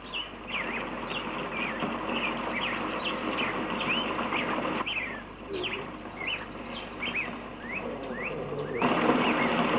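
Many birds chirping in quick, short calls over a steady rushing noise, which gets louder near the end.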